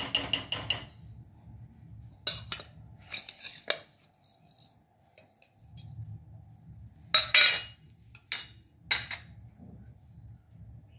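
Steel kitchenware clinking: a quick run of ringing taps on a steel plate in the first second as whole spices are knocked off it into a pressure cooker, then scattered metallic clinks and knocks against the pot, the loudest about seven seconds in.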